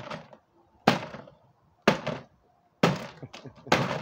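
Sledgehammer blows on a toy truck inside a plastic trash can: four sharp impacts about one a second, each dying away over about half a second.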